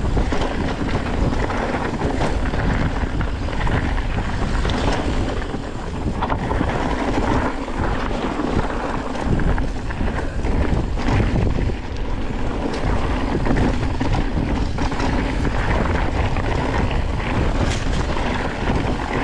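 Wind buffeting the camera microphone and tyres rolling over a dirt trail as a mountain bike is ridden downhill, with scattered knocks and rattles from the bike over bumps.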